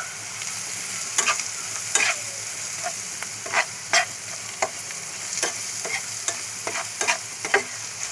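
Onions, green chillies and spice powders frying in oil in a pan, with a steady sizzle, being stirred: a utensil scrapes sharply against the pan about eight times at uneven intervals. The spices are being sautéed (koshano) for a pointed gourd bhaji.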